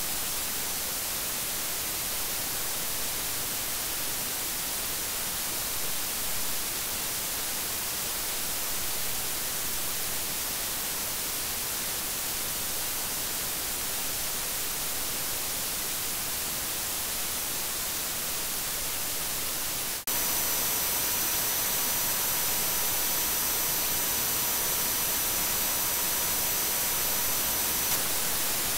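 Steady hiss of Behringer WING and S32 microphone preamp self-noise, boosted 80 dB above the recorded level. About two-thirds of the way in the hiss steps up slightly and several thin, steady high-pitched whine tones join it, cutting off shortly before the end.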